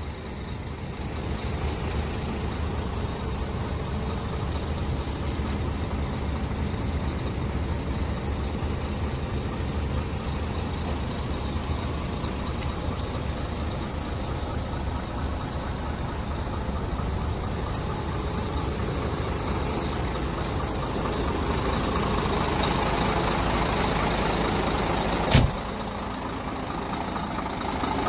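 A 2001 Scania 124L 420's 11.7-litre straight-six diesel engine idling steadily. The sound grows somewhat louder for a few seconds near the end, then comes a single sharp bang.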